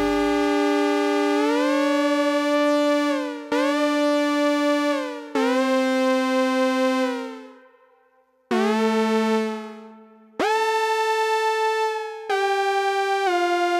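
Oberheim Two Voice Pro analog synthesizer playing a series of held notes with envelope 2 modulating pitch: one tone holds steady while a second slides up in pitch shortly after each note starts and slides back down as the note fades. Near the end the notes change in quick steps.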